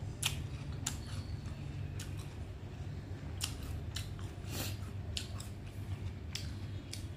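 Crisp wax apple being bitten and chewed: sharp crunching clicks, about nine of them at irregular intervals, over a low steady hum.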